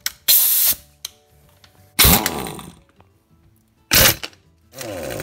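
A large D-handle pneumatic impact wrench: a short hiss of air as the hose coupler is connected, then two brief trigger bursts, each winding down in pitch, and near the end repeated hammering bursts as it breaks loose a tight crankshaft pulley bolt.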